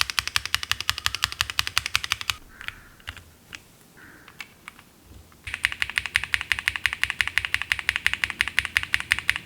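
Owlab Neon linear mechanical keyboard switches clacking as keys are pressed in quick, even succession, about ten strokes a second, in two runs. Between the runs come a few single keystrokes and some faint rustling.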